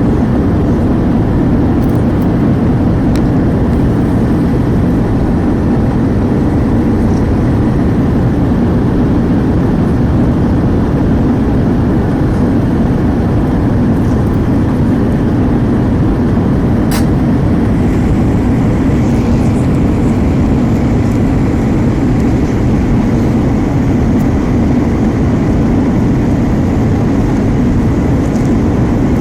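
Steady cabin noise inside an Airbus A320 in flight: an even, low engine and airflow sound, with a few faint clicks.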